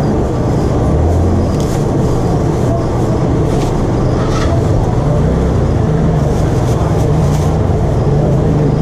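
Steady low rumble of background noise at a market food stall, with light crinkling of a plastic bag and paper box being handled a few times, strongest about four seconds in.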